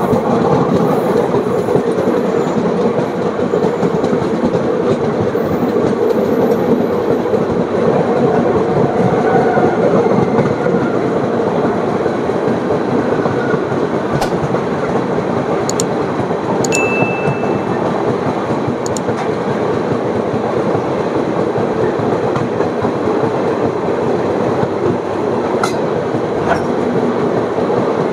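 Indian Railways passenger train running along the track, a loud steady run of wheel and carriage noise, with a brief high tone about 17 seconds in.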